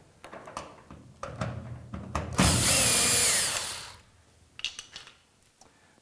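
Power drill/driver running for about a second and a half with a whine that rises and falls, backing out a fastener from a garage door handle and lock assembly; small clicks and knocks of the parts being handled before and after it.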